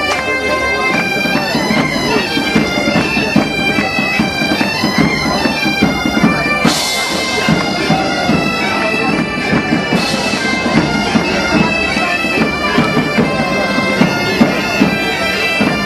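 A massed band of gaita-de-foles bagpipes playing a tune together, with snare and bass drums beating along. Two short washes of high hiss rise over the pipes about seven and ten seconds in.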